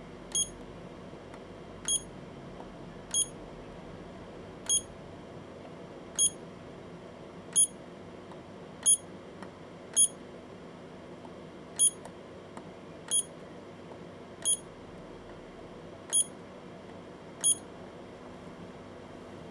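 Battery spot welder beeping as it fires weld pulses onto 18650 cell tabs: about thirteen short, high beeps at uneven intervals of roughly one and a half seconds, each with a faint click.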